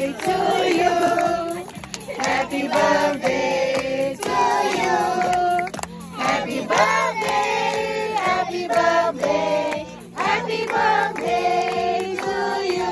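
A group of people, children among them, singing a song together in held, changing notes.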